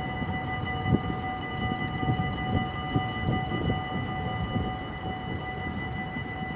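Dutch level-crossing warning bell ringing steadily, sounding as the barriers lower, over an uneven low rumbling.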